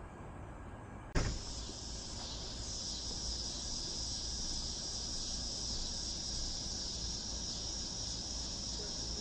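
A sharp click about a second in, then a steady, high-pitched chorus of insects, typical of crickets, over a low rumble.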